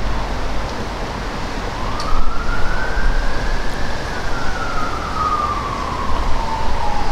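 A siren wailing slowly: its pitch rises over the first few seconds, falls steadily through the rest, and begins to rise again near the end. Wind rumbles on the microphone underneath.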